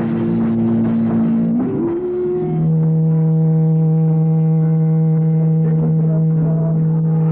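Live rock band playing; about two and a half seconds in, the instruments settle onto one long held low chord that rings steadily, like the final sustained note of a song.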